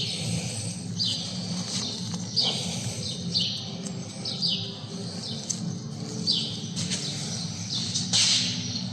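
Small birds chirping again and again, each chirp a short downward slide in pitch, over a steady low hum.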